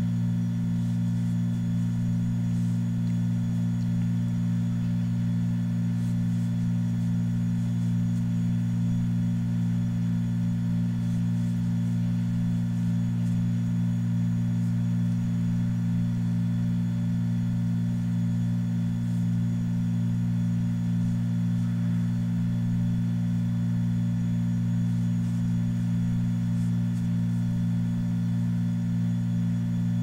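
A steady, unchanging low drone of several held tones, with fainter high tones above it.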